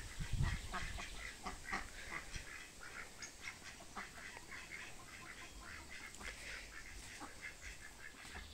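A flock of ducks quacking faintly, many short calls in quick succession, with a soft low bump at the start.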